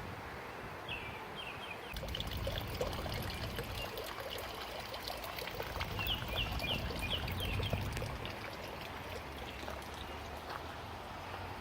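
Water trickling and splashing in a garden stream or pond, with a low rumble through the middle. A bird calls twice in quick series of short rising chirps.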